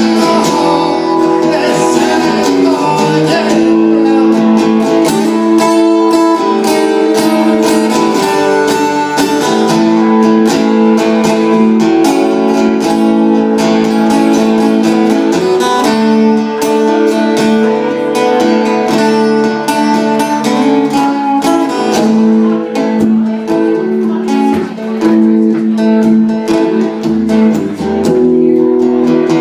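Acoustic guitar playing an instrumental passage, strummed chords changing every second or so.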